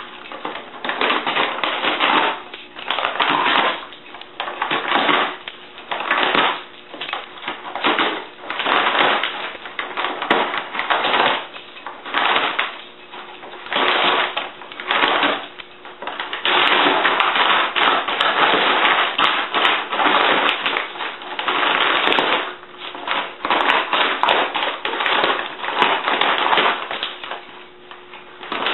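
Jack Russell terrier ripping and scrunching a brown paper bag with its teeth and paws: irregular bursts of paper crackling and tearing, with a longer unbroken stretch of ripping a little past halfway.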